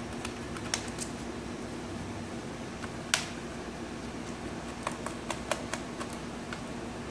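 Small sharp clicks and ticks from a Phillips screwdriver backing screws out of a laptop's plastic bottom case and the screws being handled, with a louder click about three seconds in and a quick run of clicks around five seconds. A steady low hum sits underneath.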